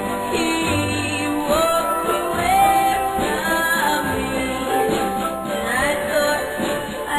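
Early-1960s pop record playing: a woman singing the lead melody over a full band backing.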